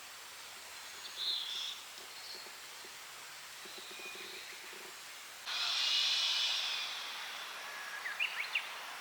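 Outdoor ambience under a steady hiss, with scattered high bird chirps. A loud high buzz lasts about a second and a half past the middle, and a few quick rising bird calls come near the end.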